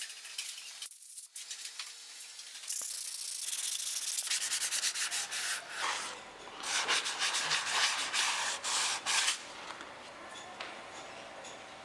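Sandpaper rubbing over plywood by hand in a run of back-and-forth strokes, starting about three seconds in and stopping a couple of seconds before the end.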